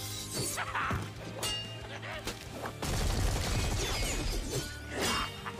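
Episode fight-scene audio playing quietly: background music with several sharp hits and crashes.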